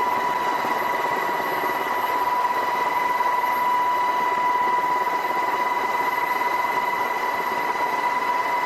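MH-60S Seahawk helicopter running: a steady high whine over an even rushing noise, unchanging throughout.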